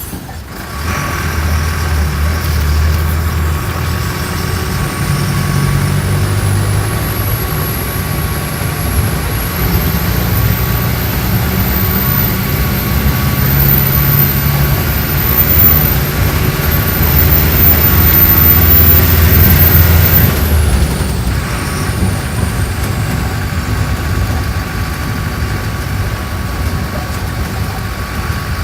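Mercedes-Benz OF-1417 bus's diesel engine pulling under load through its six-speed gearbox, its low note shifting in steps. A high whine climbs with road speed alongside it. About twenty seconds in the engine eases off, the whine falls away, and the bus runs on more gently.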